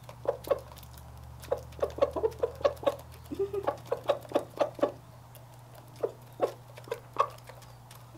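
Roosters pecking treats from people's hands: quick, irregular beak taps, coming in clusters, over a steady low hum.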